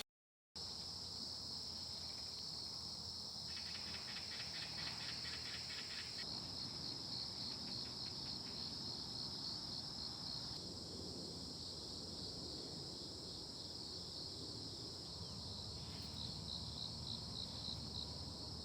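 Crickets and other insects chirping in a steady high shrill, with a faster pulsing trill joining in between about four and six seconds in.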